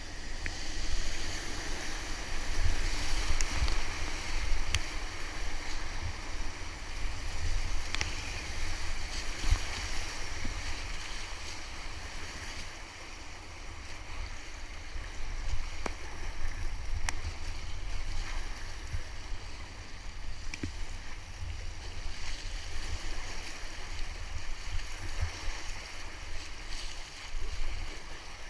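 Whitewater rushing around an inflatable kayak running a river rapid, with a low rumble of wind on the microphone and a few sharp splashes. It is loudest over the first ten seconds in the rapid, then settles to a steadier rush of choppy water.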